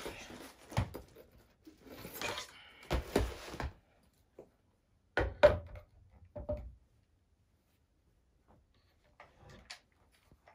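A shotgun is slid out of a leather gun case with rustling and scraping. It is then set down on a wooden table with a few knocks of wood and metal, the loudest about five and a half seconds in. A few faint handling clicks come near the end as it is lifted.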